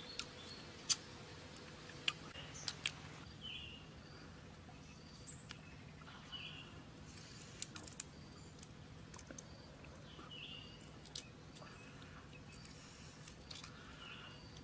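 Close-up eating and prawn-peeling sounds: sharp clicks and smacks as boiled prawns are eaten and their shells pulled off by hand. There are several in the first three seconds and a few more around eight seconds in. A bird gives a short chirp about every three to four seconds.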